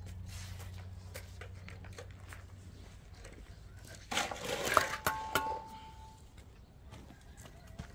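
Scattered small knocks and clicks, then about four seconds in a burst of clattering with several metal clinks that ring briefly.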